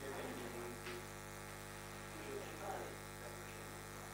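Steady electrical mains hum on the recording, with faint, unintelligible murmured talk in the room a couple of times.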